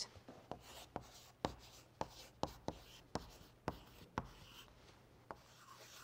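Chalk writing on a blackboard: a string of faint, sharp taps and short scratches, about two a second, as a word is chalked up, thinning out after about four seconds.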